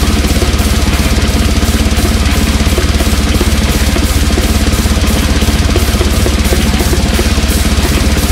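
Death metal music with fast, steady kick drum pulses under a dense wall of distorted instruments.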